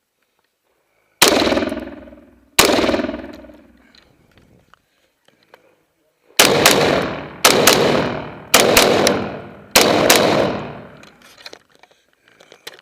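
M1 rifle firing in a shooting stage: two shots about a second and a half apart, then after a pause of a few seconds a quicker string of about four shots roughly a second apart. Each report rings out and fades over a second or more.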